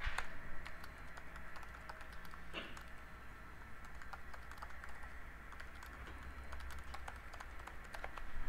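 Faint typing on a computer keyboard: a quick, uneven run of light key clicks as a line of text is typed.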